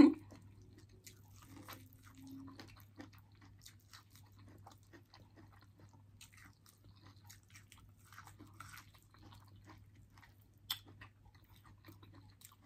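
Close-miked biting and chewing of corn on the cob: a scatter of small wet clicks and crunches as kernels are bitten off, with one sharper click near the end.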